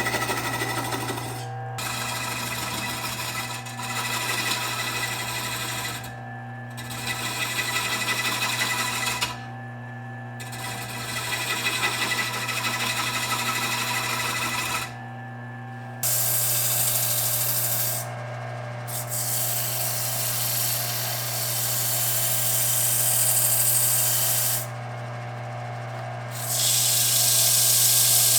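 Small Rikon wood lathe running with a steady motor hum while a turning tool cuts the spinning wooden plate blank. The cutting noise comes in passes a few seconds long with short breaks between them, and the sound changes abruptly about halfway through.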